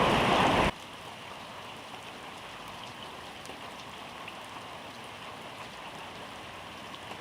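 Steady rain falling, an even hiss with scattered faint drop ticks. A louder rumble with heavier rain cuts off suddenly under a second in.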